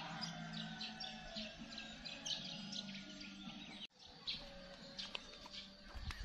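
Small birds chirping and calling repeatedly, over a steady low hum that cuts off about four seconds in.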